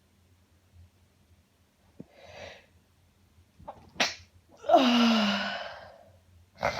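A woman sneezing in an uncontrollable sneezing fit: catching breaths in, then one loud, drawn-out sneeze whose voiced cry falls in pitch and trails off. Another sharp breath in comes near the end.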